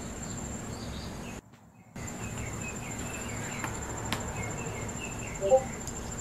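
Quiet workshop background: a steady low hum and a thin high steady whine, with faint short chirps repeating from about two seconds in. The sound drops out briefly about a second and a half in, and there is one short squeak-like blip near the end.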